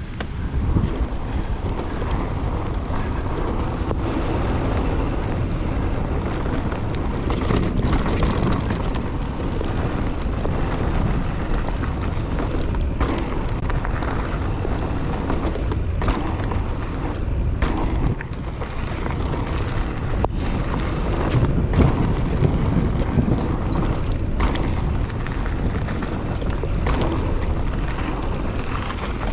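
Wind buffeting an action camera's microphone while a mountain bike is ridden along a trail, a steady low rumble with tyre noise and frequent short knocks and rattles from the bike.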